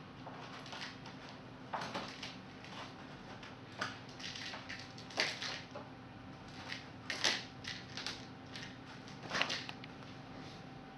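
A kitten crinkling and rustling a sheet of paper, in irregular crackly bursts with short pauses between them.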